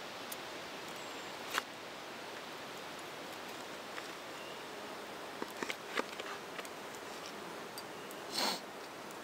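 A few light clicks and scrapes of a knife and fork on a wooden board as a steak is cut, with a short breathy noise near the end, over a steady hiss of rushing water.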